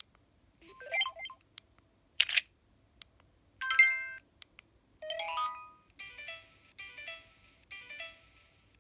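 Samsung SGH-E900 mobile phone playing its built-in message alert tones: several short electronic chimes and blips one after another with brief silences, then from about six seconds in a short tone figure repeating about once a second.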